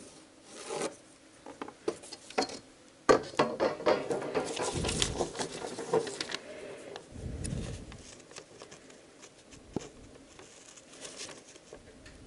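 Steel scissors snipping through a sheet of paper, with the paper rustling as it is handled and turned. A sharp knock about three seconds in, then a few seconds of dense snipping and rustling before it thins to scattered clicks.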